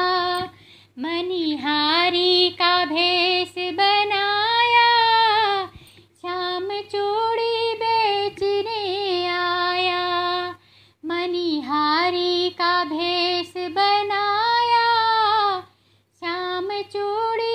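A high female voice singing a Krishna devotional song solo and unaccompanied. It runs in long, gliding phrases of a few seconds each, with brief pauses for breath between them.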